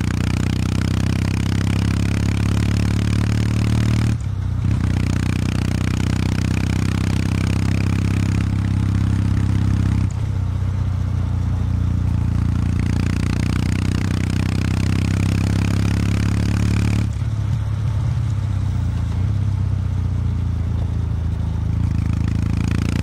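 Kawasaki W800 Street's air-cooled 773 cc parallel-twin engine running through its stock exhaust at around 2,000 rpm on the move, a steady low exhaust note. The note breaks briefly about four, ten and seventeen seconds in, and after the last two it runs softer for a few seconds.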